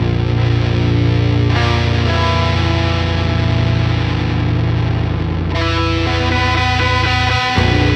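Music with distorted electric guitar, held chords changing every few seconds.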